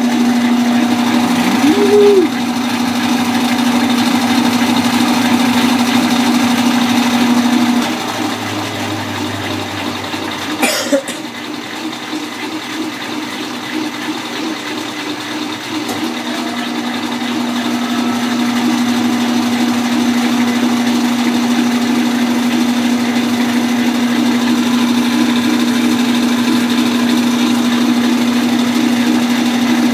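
Kenmore KLA7924FQ0 top-loading washing machine with a belt-drive transmission, running empty on a rinse cycle, its motor giving a steady hum. The hum drops out about eight seconds in, leaving a quieter churning, then builds back up gradually, with a single click in between.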